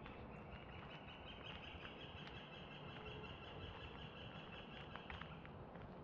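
A wild animal's high, even trill, held for about five seconds, over a few faint footsteps on a dirt path.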